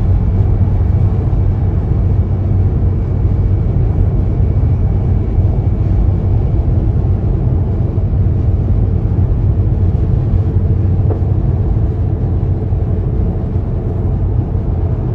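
Steady low rumble of road and engine noise inside a car cruising on a motorway.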